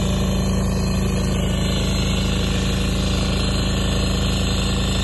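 Engine of a walk-behind rotary power weeder running steadily under load as its rotary tines till the soil between crop rows: an even, unbroken hum.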